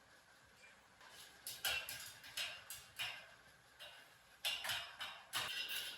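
A series of irregular light taps and clicks, starting about a second and a half in, with short gaps between them.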